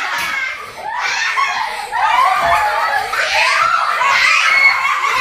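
Young children laughing at play, with high voices rising and falling; the sound dips briefly about a second in.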